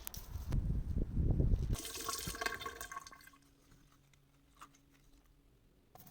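Water running and splashing, loud for about the first three seconds, then stopping.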